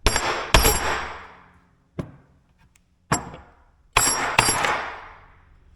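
Hard objects knocking and clattering: five sharp knocks, each trailing off in a rattle for about a second, with a small tick in between.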